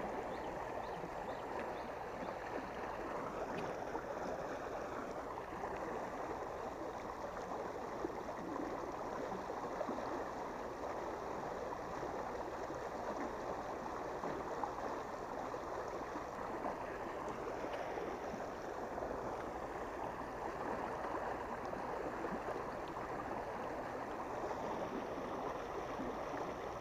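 Water rushing steadily out of a river's water-gate outlet and churning into the river, a constant rush of noise.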